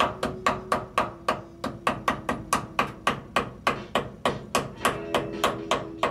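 Hand hammer striking in a fast, even run of about four to five blows a second, fastening chicken wire to wooden framing.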